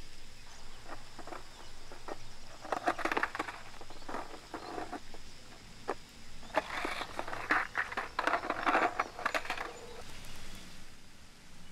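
Skateboard on asphalt: two spells of rattling clicks and scrapes from the board and wheels, the first from about two and a half to five seconds in, the second denser from about six and a half to ten seconds.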